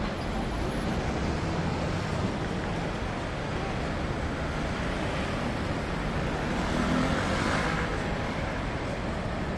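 Steady city street traffic noise: a continuous low rumble with hiss, swelling a little about seven seconds in.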